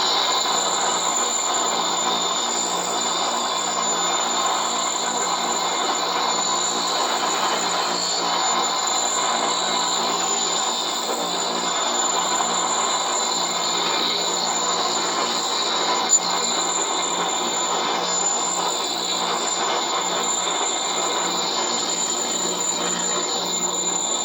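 Bench grinder running with a steel axe blade held to the spinning wheel for sharpening: a steady grinding hiss over the motor's low hum and a high whine.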